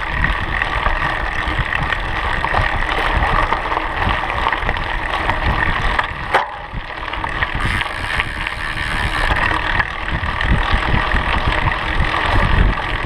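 Knobby mountain-bike tyres rolling over a gravel and dirt track, with wind buffeting the microphone. There is a sharp knock about six seconds in.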